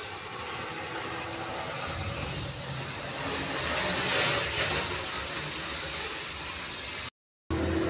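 A steady hiss that swells to its loudest about four seconds in and then eases off, with a few faint high chirps in the first couple of seconds.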